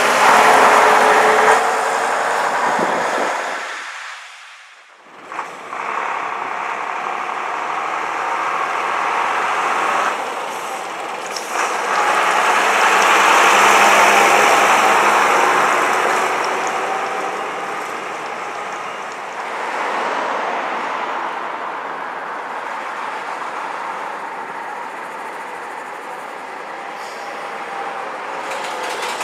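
Vintage diesel buses and a coach driving past one after another, engines running. Each swells and fades as it passes, with the loudest pass about halfway through and another bus drawing near at the end.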